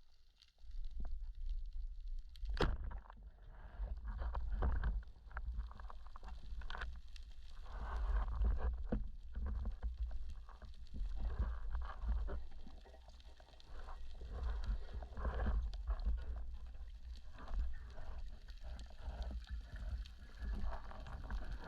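Low rumbling water noise with irregular clicks and knocks, and a sharp knock about two and a half seconds in.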